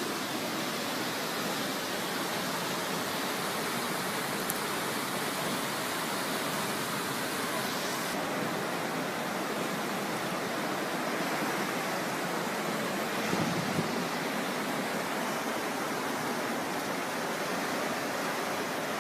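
Steady rushing of fast-moving floodwater, a constant roar of churning water. About two-thirds of the way through there is a brief, louder low sound.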